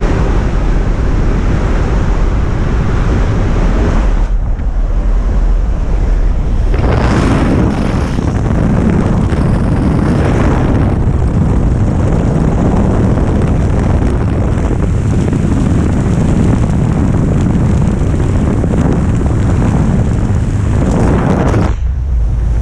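Loud, steady rush of wind and aircraft engine noise buffeting a helmet camera's microphone in the open door of a skydiving jump plane in flight, with a brief dip near the end as the jumpers leave the aircraft.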